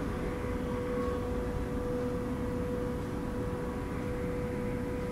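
Eagle Industries Max 20 TEAO industrial ventilation fan running steadily at full speed: a very loud rush of moving air with a steady hum. Its split-phase motor is in working condition again.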